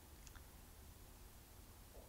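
Near silence: faint room tone, with one faint click about a third of a second in.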